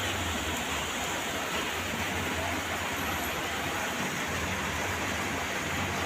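Heavy rain falling, a steady hiss with a low rumble underneath.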